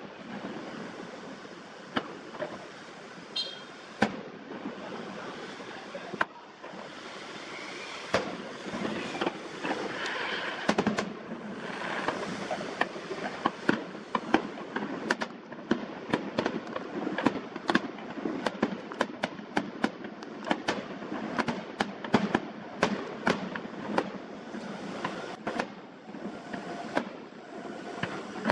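Distant fireworks display, sped up to double speed: sharp bangs of shells launching and bursting, a few at first, then several a second from about ten seconds in, over a steady background hiss.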